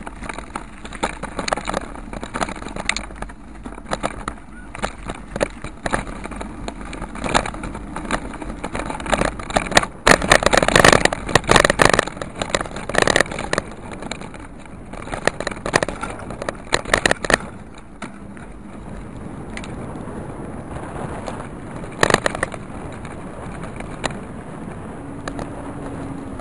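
Rattling and knocking of a body-mounted sports camera jolted over a rough, potholed road while riding, over steady wind and rolling noise. The knocking is densest and loudest about ten to thirteen seconds in and gives way to a smoother, steadier rushing later on.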